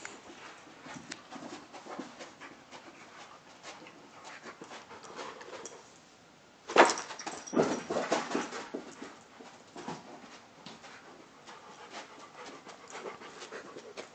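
A dog panting and scrabbling about while playing with a ball, with many small rustles and clicks. About halfway through comes a sudden loud burst of noise lasting a second or two.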